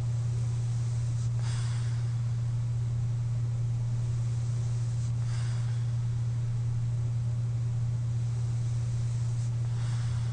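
A sleeping person's breathing through a CPAP mask: three short airy breaths about four seconds apart, with no snore in them, over a steady low hum.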